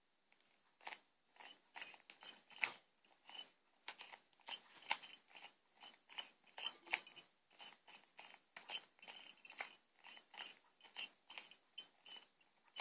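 A stiff plastic 3x3 Rubik's cube being turned layer by layer: a quick, uneven run of short plastic clicks and scrapes, about two or three turns a second, starting about a second in.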